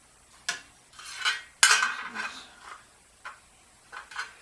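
Metal parts of a 1969 VW Beetle generator clinking and clattering as they are handled and fitted together by hand: about half a dozen separate sharp clinks, the loudest about a second and a half in.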